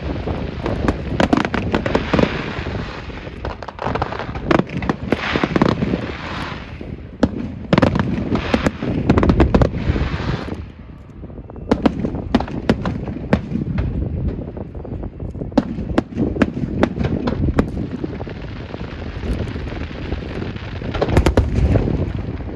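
Fireworks going off in a continuous barrage of bangs and crackling. The heaviest booms come about nine to ten seconds in, there is a short lull just after, and then more sharp reports follow.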